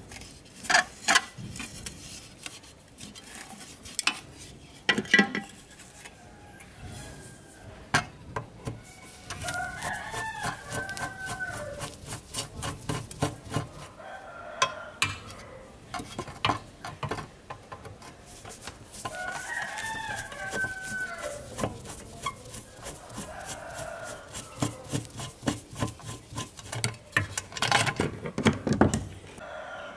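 Clicks and knocks of hard plastic and metal as the control box of an old electric fan is taken apart by hand. A rooster crows twice, about ten seconds in and again about twenty seconds in.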